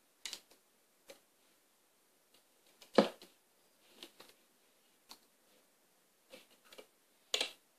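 Scattered light clicks and ticks of a small hook and rubber loom bands against a plastic loom board's pegs as the bands are worked off the pegs by hand. The sharpest clicks come about three seconds in and again near the end.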